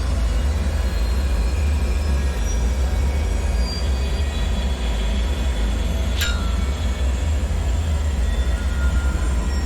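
Dark bunker ambience: a steady deep rumble with faint high ringing tones over it, and a single sharp ping about six seconds in.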